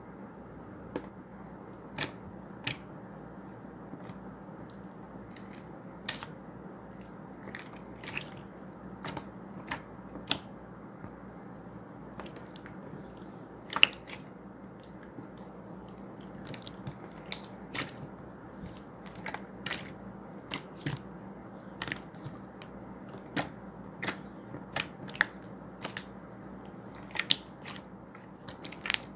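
Slime being squeezed and kneaded by hand, giving irregular sharp clicks and crackling pops over a steady low hum.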